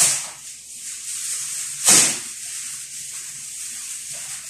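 Plastic rustling and crinkling as it is handled, a steady scratchy rustle with two louder swishes, one at the start and one about two seconds in.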